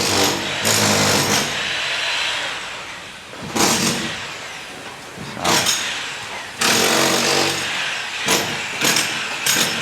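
A power tool on a building site running in repeated bursts of about a second, several times over.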